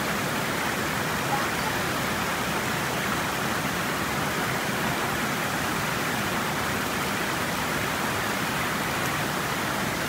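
Steady rush of a small waterfall pouring over rock, an even unbroken wash of water noise.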